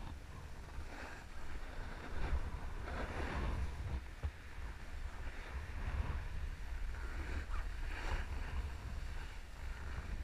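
Wind buffeting the action camera's microphone as the rider slides downhill, with swells of edges scraping across packed snow every second or two.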